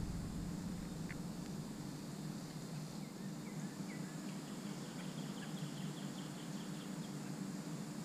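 Faint bird calls: a few short chirps, then a quick series of about a dozen notes a little past the middle, over a steady low hum.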